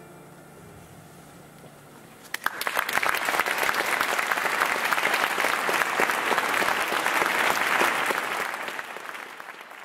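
A faint low held note from the band fades away, and about two and a half seconds in the audience starts applauding. The clapping stays steady, then thins out near the end.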